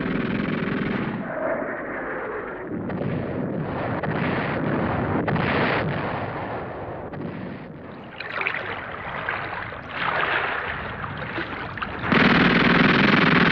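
Battle sound: scattered gunshots and explosions over a noisy rumble, then a sudden loud burst of sustained gunfire, like machine-gun fire, near the end.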